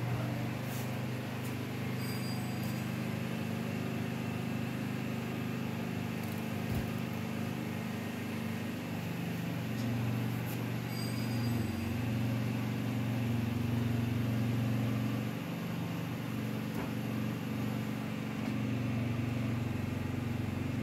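A steady mechanical hum of several fixed low tones, with a few faint clicks.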